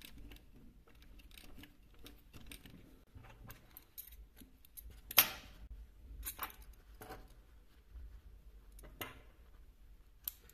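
Sparse small clicks and light handling sounds of work at a sewing machine, with one sharper click about five seconds in; the machine itself is not running.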